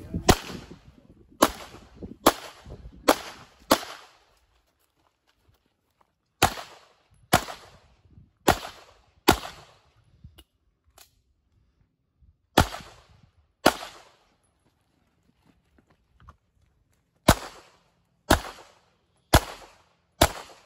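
Semi-automatic pistol shots, about fifteen in strings of two to five, roughly one a second, with pauses of a few seconds between strings.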